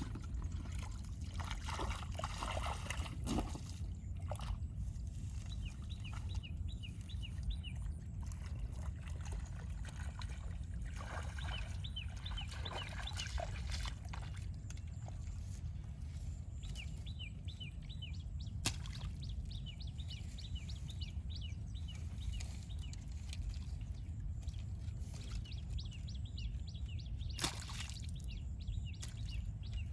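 Shallow water sloshing and splashing in short bouts over a steady low rumble. Groups of rapid, high chirps repeat every few seconds, and there are two sharp clicks in the second half.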